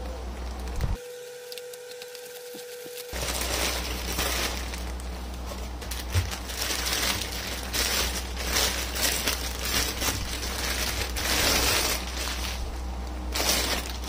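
Plastic packaging crinkling and crackling in handling: a polythene courier mailer and a clear plastic bag being opened by hand, most of it after the first few seconds.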